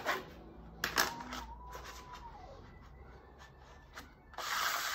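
Clear acrylic fitting templates handled on a vinyl plank floor: a few sharp taps as a sheet is set down near the start and about a second in, then a brief scraping slide of a sheet across the floor near the end.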